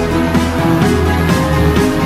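Background music: an instrumental track with sustained notes over a steady beat.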